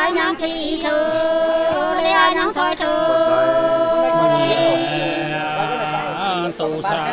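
Women singing hát sli, the Nùng folk song, unaccompanied, in long drawn-out wavering notes, with a note held for about two seconds in the middle. A lower voice sounds underneath from about four seconds in.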